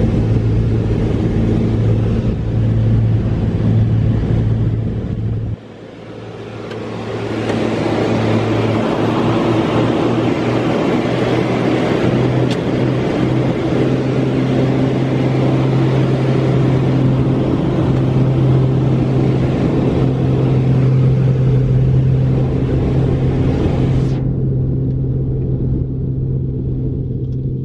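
Steady drone of a twin piston-engine light aircraft's engines and propellers heard inside the cabin, over a hiss of rushing air. The sound drops suddenly about five seconds in and builds back over the next couple of seconds. The hiss falls away near the end, leaving the low drone.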